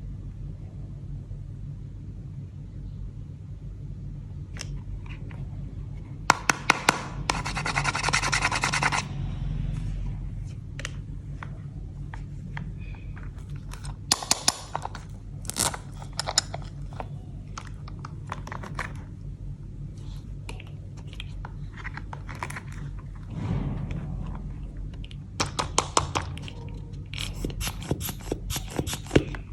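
Toy playset pieces being handled and unboxed close to the microphone: scattered clicks, taps and scrapes. A rasping run of quick ticks comes about seven seconds in, and clusters of sharp clicks come near the end, over a steady low hum.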